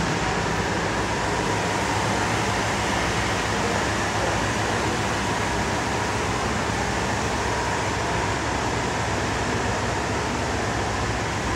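Steady rushing noise with a faint constant hum, like ventilation or air-conditioning running, unchanging throughout.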